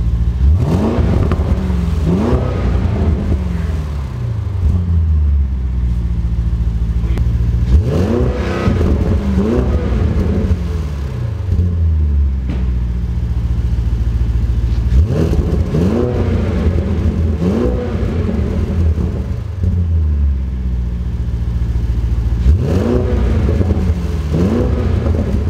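2020 Audi S8's twin-turbo V8 through a custom titanium cat-back exhaust, idling and revved in short pairs of throttle blips, four times, each falling back to idle.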